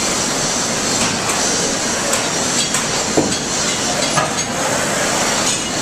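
Electric arc welding: a steady crackling hiss of the arc with scattered sharp pops.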